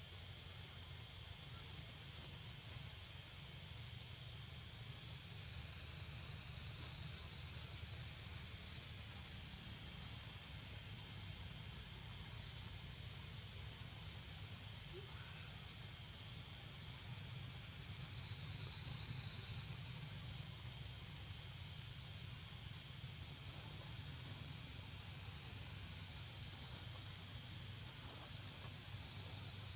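Steady, high-pitched drone of insects, unchanging in level and pitch.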